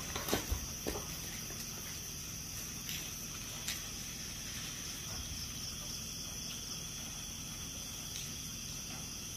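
Quiet background ambience: a steady high-pitched whine over a constant hiss, with a few faint taps in the first second.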